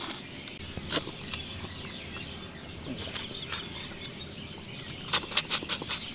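Crunching bites into a piece of crisp fried dried fish (katta karuvadu fry): a few sharp crunches about a second in and again around three seconds, then a quick run of crunches near the end.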